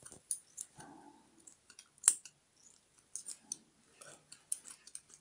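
Scissors snipping and metal instruments clicking against an ear-cropping clamp on a puppy's ear, in scattered short clicks with one sharp, loud click about two seconds in.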